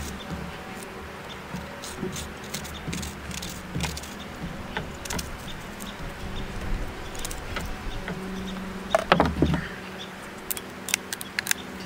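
Knife slicing a red onion on a plastic cutting board: a run of small crisp cuts and taps over a faint steady hum. Near the end, a louder clatter and a quick series of clicks as a plastic mandoline slicer is set down and handled.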